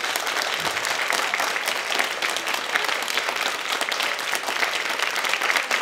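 Studio audience applauding: many hands clapping at a steady level.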